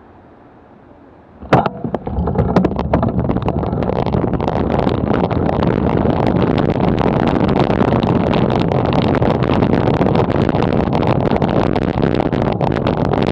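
A sharp click about a second and a half in, then loud wind rush and road rattle on a bicycle's handlebar camera as the bike sets off from a standstill and picks up speed.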